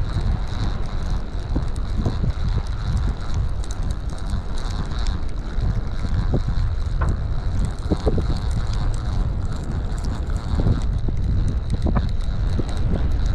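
Wind buffeting the microphone in gusts, with a few scattered clicks from a Penn Squidder 140 multiplier reel being cranked in.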